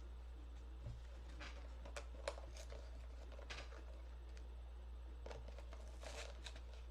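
Faint, scattered clicks and rustles of a small cardboard mystery box and its plastic packaging being handled, over a steady low hum.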